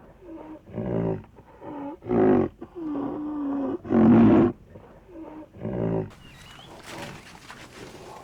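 Rhinoceros calling: a series of about eight short, pitched bellows, one of them held longer and steady near the middle. It is followed in the last two seconds by a quieter, hissy stretch without calls.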